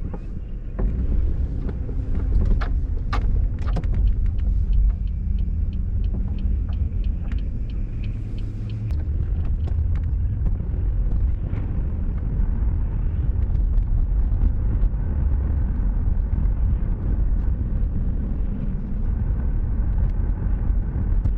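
Steady low rumble of a car on the road, with light clicks and a short run of even ticks over it.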